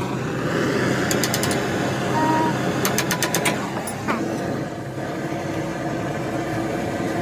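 Workshop noise: a steady hiss and low hum, with two short rapid runs of sharp metallic clicks, about a second in and again about three seconds in.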